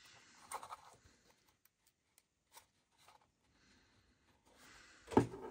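Handling of a small 3D-printed plastic case as the display is pressed onto its header pins. There is a soft rattle about half a second in and a few faint clicks, then a louder plastic knock near the end.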